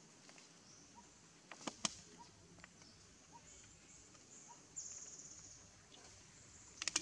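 Faint outdoor ambience of a steady high insect drone, with a short buzzy trill about five seconds in and a faint note repeating about once a second. A few sharp clicks come around two seconds in and again near the end.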